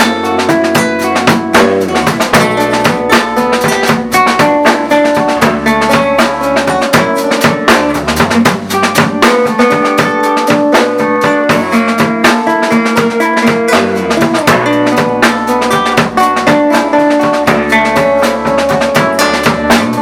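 A rock band playing live: guitar, bass guitar and drum kit, with a steady beat and sustained guitar chords.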